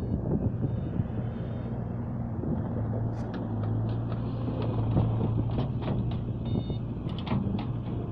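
Bobcat skid-steer loader engine running steadily under work, with several sharp metallic clanks. Its reversing alarm beeps briefly near the end.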